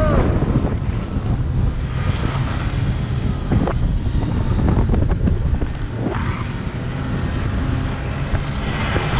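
Wind rushing over an action camera's microphone as an inflatable snow raft is towed fast across snow, over a steady low drone from the towing snowmobile's engine. A few short knocks come as the raft bumps over the snow.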